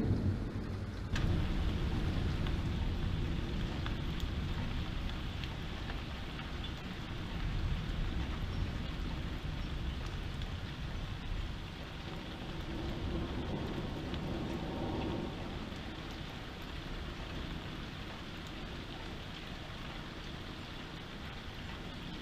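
Heavy rain falling steadily in a thunderstorm, with a crack of thunder about a second in that rolls into a low rumble and fades, and fainter rumbles later.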